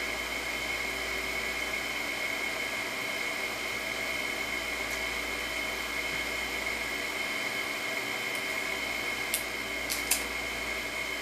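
Steady background machine noise: a constant high whine over a hiss. A few light clicks near the end.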